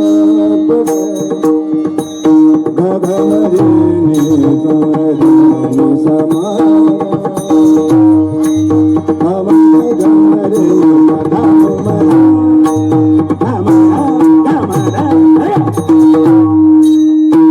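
Marathi devotional bhajan music: a steady drone note held under a wavering melody line, with hand-drum strokes and regular sharp strikes keeping the beat.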